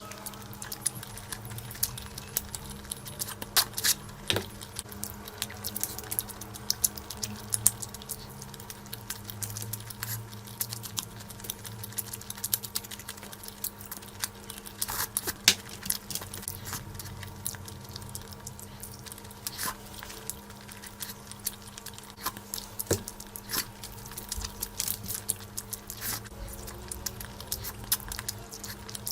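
Close-miked eating of curry and rice: a dense, irregular run of small wet clicks and smacks from chewing, over a faint steady hum.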